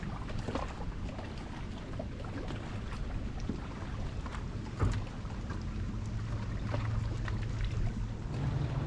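Wind rumbling on the microphone over water lapping against a boat hull, with scattered light clicks and one thump about five seconds in. A low steady hum sets in about six seconds in.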